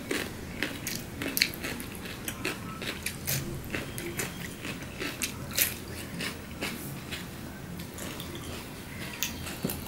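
Close-miked chewing and crunching of food eaten by hand: irregular crisp crunches as a bite of a raw salad slice is chewed with rice.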